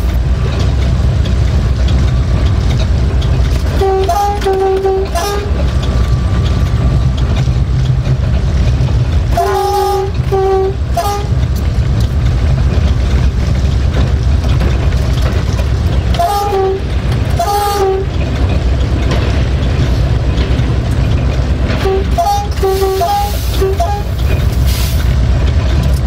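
Diesel-electric locomotive EGM621's engine running steadily, heard from the cab, with its horn sounded in four groups of two to four short blasts, about 4, 10, 16 and 22 seconds in.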